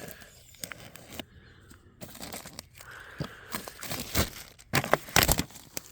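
A cardboard box being cut open: irregular tearing and crinkling of tape and cardboard, with scrapes and clicks and a cluster of louder rustling knocks about five seconds in.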